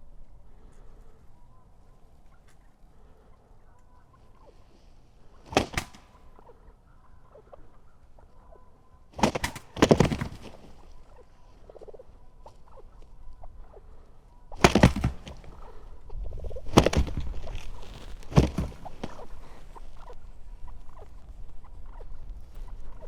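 Wild turkey gobbler gobbling close by, about five or six loud rattling gobbles at intervals of a few seconds.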